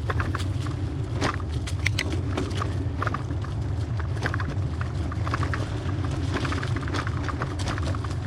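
Hybrid bicycle riding over a rough dirt trail: a steady low rumble of tyres rolling on the ground, with frequent clicks and rattles from the bike jolting over bumps.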